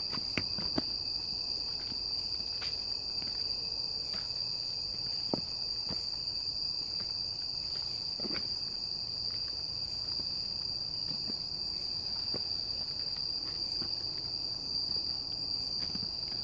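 Steady, high-pitched chorus of night insects in forest, unbroken throughout, with a few scattered soft clicks and knocks from walking along the path.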